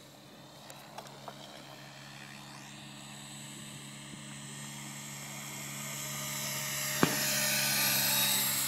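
Electric Align T-Rex 700 flybarless RC helicopter flying a pass: its rotor and motor drone and whine grow steadily louder as it comes closer, loudest near the end. A single sharp crack cuts through about seven seconds in.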